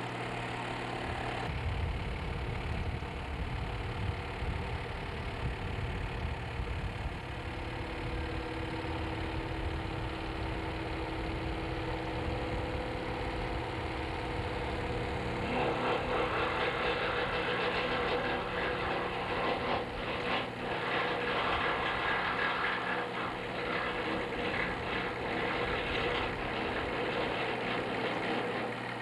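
Motor of a slow-pull test rig running steadily while it pulls a rescue toboggan end to end; about halfway through the sound turns louder and harsher.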